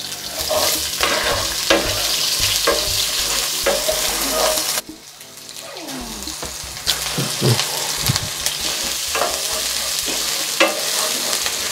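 Sliced shallots and green chillies sizzling in hot oil with mustard, cumin and fennel seeds in a nonstick pan, stirred with a wooden spoon that clicks and scrapes against the pan. The sizzle drops off suddenly about five seconds in and builds back up a couple of seconds later.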